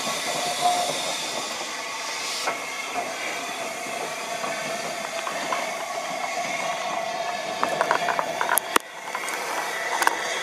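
Steam hissing steadily from the LSWR/Southern Railway Lord Nelson class steam locomotive No. 850, with a faint steady tone under the hiss. A quick run of clicks and one sharp knock come near the end.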